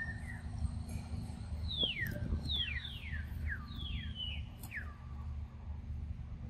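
A forest bird singing a run of about seven clear whistled notes, each sliding steeply down in pitch, starting about two seconds in and lasting some three seconds, over a steady low background rumble.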